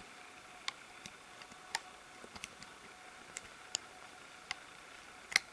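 Light, irregular clicks and small snaps of a plastic loom hook and rubber bands against the pegs of a Rainbow Loom as bands are hooked over, about a dozen over five seconds, the loudest one near the end.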